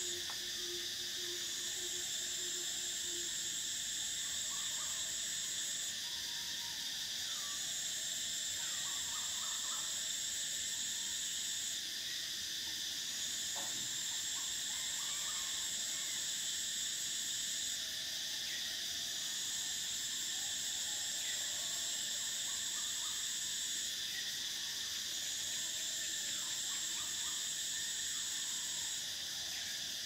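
Cicadas singing in a steady high drone, with a second, higher-pitched chorus that runs in phrases of about five seconds and breaks off briefly about every six seconds.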